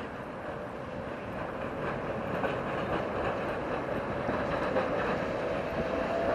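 Two-car Gothenburg tram rolling through a curved junction on wet rails, its running noise growing steadily louder as it approaches. There are a few clicks from the wheels over the track, and a steady tone grows stronger near the end.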